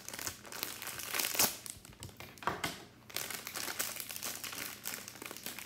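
Shiny plastic blind-bag wrapper of a Hot Wheels Monster Truck Minis surprise pack crinkling and crackling in the hands as it is worked open, with a short lull about three seconds in.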